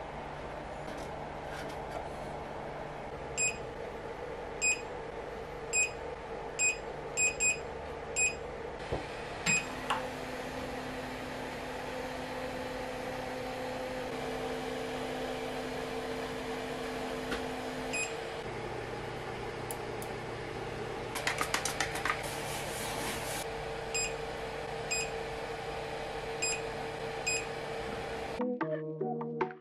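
FLSUN Super Racer delta 3D printer running with a steady hum, its held tones shifting in pitch a few times, while its touchscreen gives short high beeps: a quick run of about nine in the first ten seconds and four more near the end. Music comes in at the very end.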